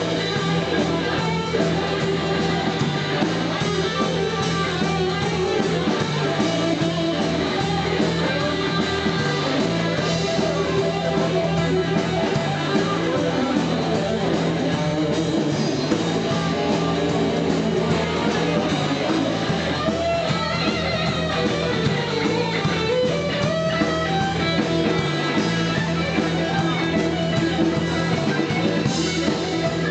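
Instrumental passage of a blues boogie band: guitars over a steady, repeating bass line and drums, with no singing.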